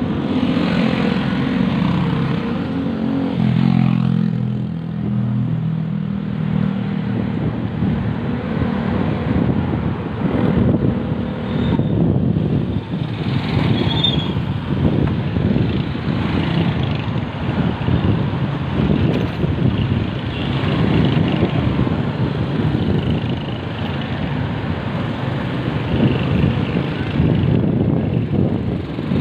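Wind buffeting the microphone and street traffic noise while riding along a road. A motor vehicle's engine hums in the first few seconds as traffic passes.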